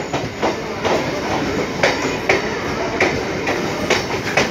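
Train running on the rails, heard from an open doorway: a steady rolling rumble with sharp, irregularly spaced clacks of wheels over rail joints, several of them in the few seconds.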